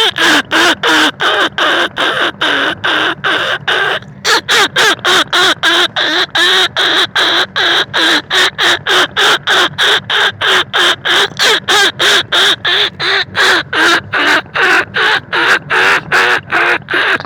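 A lure call for field rats and bandicoot rats: a fast, even string of short, wavering squeaking calls, about three or four a second, with a brief pause about four seconds in.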